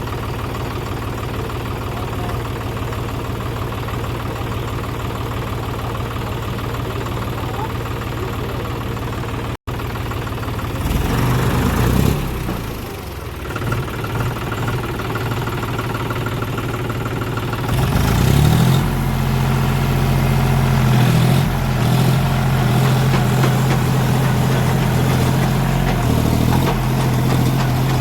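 John Deere 5050D tractor's three-cylinder diesel engine running steadily. It breaks off for an instant about ten seconds in, its note shifts for several seconds, and from about eighteen seconds in it runs louder and steady at a higher speed.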